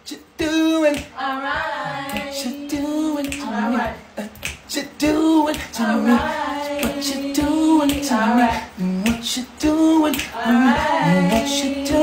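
Voices singing a cappella, a man and women holding long notes that waver in pitch, with sharp percussive hits keeping a rough beat.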